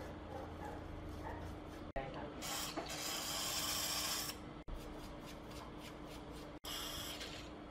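A bristle brush scrubbing a wet circuit board in quick back-and-forth strokes. There is a longer, harder stretch of scrubbing from about two to four seconds in, and the sound cuts out for an instant a few times.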